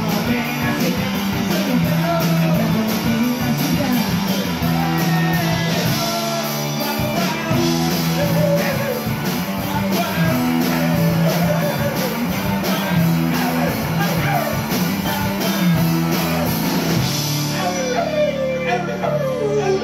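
Live rock band playing a new-wave song: electric guitar, electric bass, drum kit and a male lead vocal over a steady beat. Near the end the drums stop and held notes ring on under the voice.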